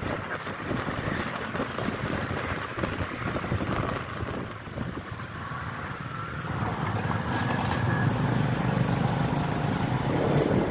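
Road traffic noise: vehicle engines running along a road, growing louder about two-thirds of the way through.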